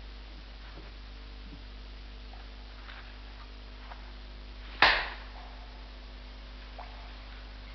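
Steady hiss and low mains hum of an old film soundtrack, with a few faint ticks and one sharp crack about five seconds in.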